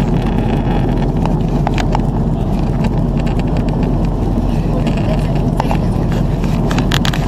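Steady cabin noise of an Airbus A330-300 with GE CF6 engines at high altitude early in its descent: a loud, even drone of the engines and the airflow past the fuselage, heard inside the cabin at a window seat, with a few light clicks over it.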